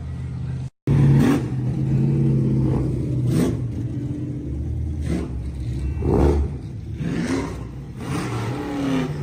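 Classic cars driving past one after another, each engine swelling up and fading as it goes by, about six pass-bys over a steady low engine drone. There is a brief cut-out of all sound about a second in.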